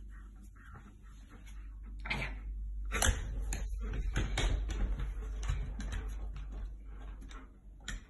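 Handling noise of a large long-coated dog being petted right against the phone, with fur rubbing on the phone and an irregular run of knocks and clicks as the dog moves about on a wooden floor, busiest from about two seconds in.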